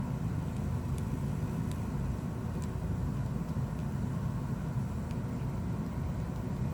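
Steady low background rumble with a few faint, light clicks of small tools and parts being handled on a phone under repair.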